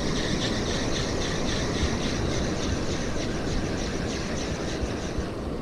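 Spinning reel being cranked to retrieve a lure, a steady whirr with an even ticking about five times a second that stops shortly before the end, over a constant rush of wind and surf.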